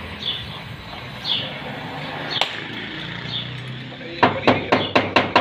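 Gas welding torch hissing against a dented steel car body panel, heating it for dent repair. Near the end a hammer strikes the heated sheet metal in a quick run of sharp taps, about four a second.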